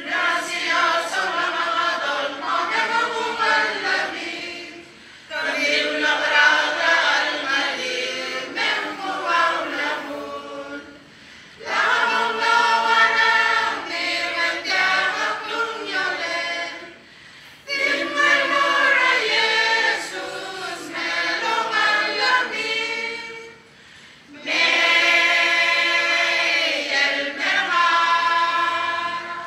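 Mixed choir of men and women singing a song a cappella, in about five phrases of roughly six seconds, each followed by a brief pause for breath.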